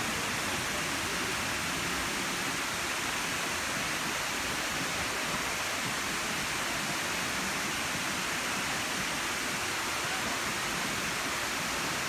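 Kuang Si Falls, a multi-tiered waterfall, with water pouring down its cascades in a steady, even rush.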